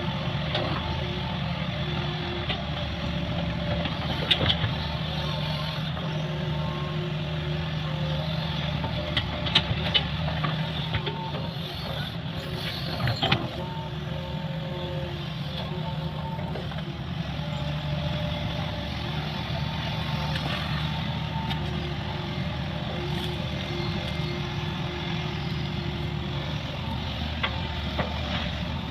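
Excavator's diesel engine running steadily while it works, with intermittent higher hydraulic tones and a few sharp metallic knocks, about four, ten and thirteen seconds in.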